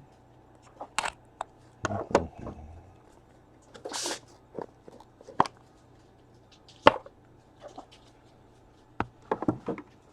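Handling of a trading-card box and its packaging: scattered sharp clicks and taps, with a short rustle of wrapping about four seconds in.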